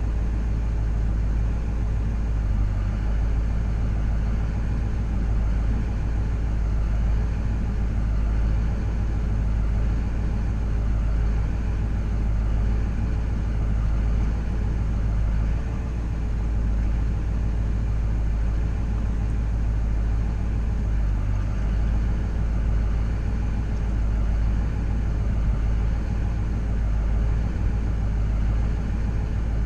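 SUV engine idling steadily, heard from inside the cab as a low, even rumble.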